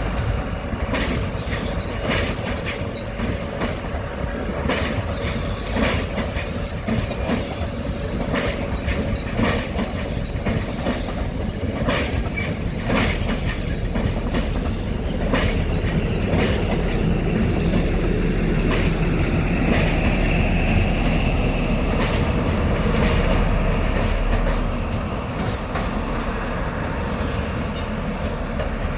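Train passing on the railway: wheels clicking repeatedly over rail joints, then a louder, steadier rumble with a thin high steady tone for several seconds near the end.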